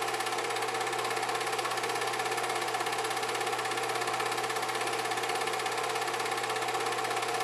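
8mm film projector running: a steady mechanical whirr with hiss and a constant low hum, unchanging throughout.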